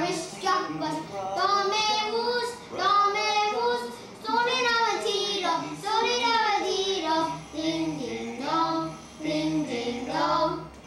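Young children singing a song, in phrases with short pauses between them.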